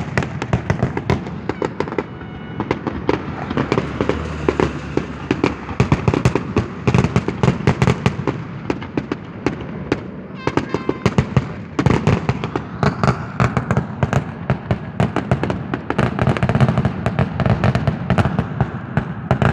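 Aerial fireworks display: a dense, rapid barrage of shell bursts and crackling, bangs coming several times a second without a pause, the volley of a display's finale.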